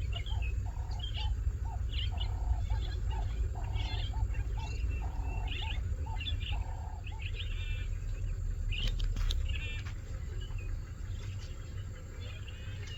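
Garden birds calling: a low, rhythmic cooing phrase repeated for the first seven seconds or so, with higher chirps and twitters from smaller birds throughout, over a steady low rumble.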